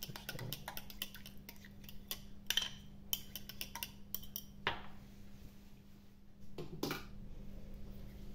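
A metal fork stirring liquid in a small drinking glass, clinking quickly and irregularly against the glass, stopping a little under five seconds in. A couple of louder knocks follow about a second and a half later.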